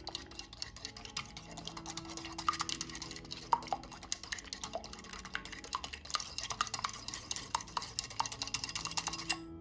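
Coil whisk beating eggs in a ceramic bowl: a fast run of clinking and scraping as the wire strikes the sides, stopping just before the end.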